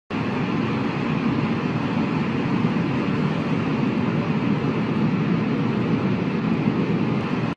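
Steady rushing, rumbling noise of an intro sound effect, even throughout, starting abruptly and cutting off sharply.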